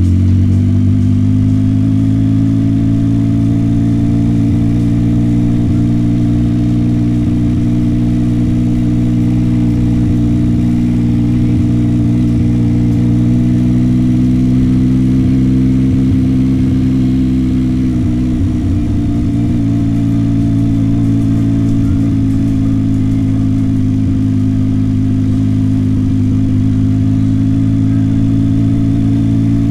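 Yamaha MT-09 SP's 890 cc three-cylinder engine running at low, steady revs while the bike rolls along, with a short change in the engine note about two thirds of the way through.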